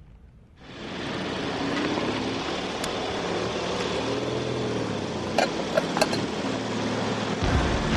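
Tank engines running, their pitch rising and falling, over a steady rumbling noise that fades in about half a second in, with a few sharp metallic clanks about five to six seconds in.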